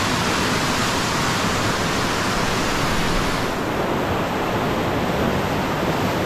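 Strong, fast-flowing muddy floodwater rushing down a narrow creek channel: a steady rushing of water. The highest hiss thins out a little past halfway.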